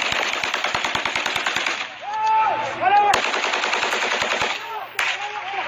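Automatic weapon fire in two long rapid bursts, the first about two seconds long and the second about a second and a half after a short break, then a single shot near the end.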